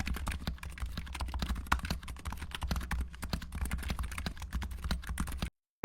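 Fast typing on a Razer Huntsman Mini keyboard with red linear optical switches: a dense, quick stream of key clicks that stops abruptly near the end.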